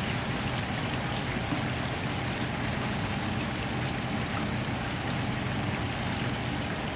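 Egg-coated chicken pieces deep-frying in a commercial fryer: the oil bubbles and sizzles steadily as a wire spider strainer stirs through it. A steady hum from the kitchen exhaust hood runs underneath.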